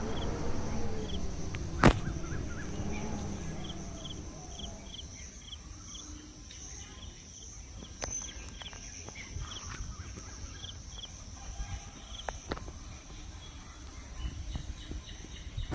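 Countryside ambience: birds chirping in short repeated calls over a steady high drone, with wind rumbling on the microphone. A sharp click about two seconds in is the loudest moment.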